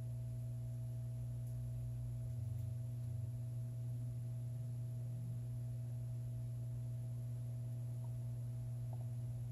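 A steady low electrical hum with a fainter higher tone above it, unchanging throughout.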